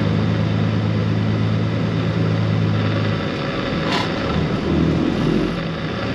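A vehicle engine idling with a steady low hum that stops abruptly about three seconds in, followed by a single sharp click about a second later.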